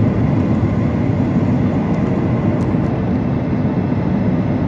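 Steady low roar inside the cabin of a Boeing 737-800 airliner: engine and airflow noise, even and unbroken.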